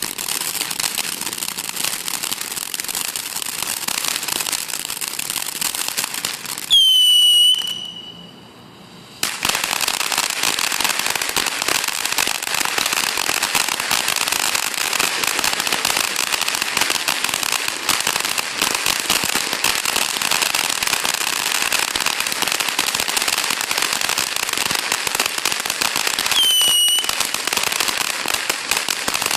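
Consumer firework fountain crackling steadily, with a short whistle that drops in pitch and holds twice: once about a quarter of the way in, when the crackle briefly dies down, and again near the end.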